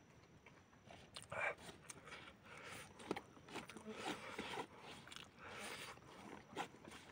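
A person chewing and slurping noodles close to the microphone, in irregular short, faint bursts.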